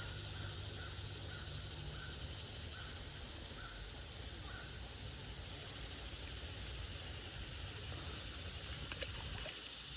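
Steady outdoor background hiss, with a bird giving short calls roughly once a second through the first half.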